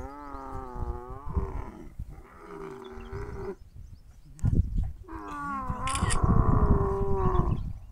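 Dromedary camel in labour giving long, drawn-out calls, three in all with a short pause before the last, as the calf is pulled out by its legs in an assisted birth.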